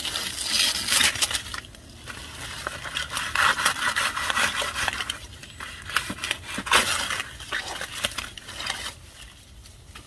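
Dry banana leaves and leaf sheaths rustling, crackling and scraping as they are gripped and pulled at on the trunk, in several bursts with short pauses between.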